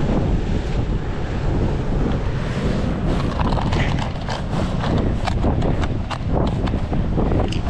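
Wind buffeting the microphone throughout, with a run of small clicks and rattles from about two and a half seconds in as a clear plastic tool case is handled with gloved hands.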